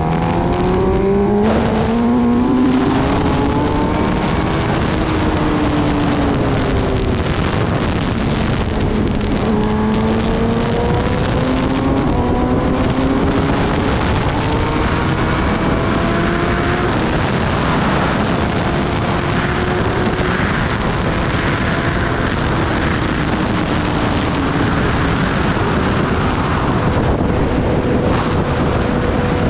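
Kawasaki Ninja ZX-10R's inline-four engine pulling away and accelerating through the gears, its pitch climbing, dropping at each shift and falling back as the throttle eases, several times over. Wind noise rushes over the microphone, growing stronger in the second half as speed builds.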